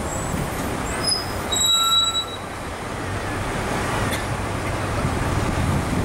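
Steady city road traffic noise, with a brief high squeal about two seconds in.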